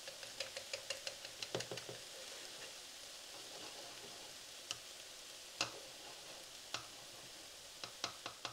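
A spatula scrambling an egg in a pan of frying cabbage and ground chicken. It ticks against the pan in a quick run of light taps for the first two seconds, then gives a few scattered clicks over a faint steady sizzle.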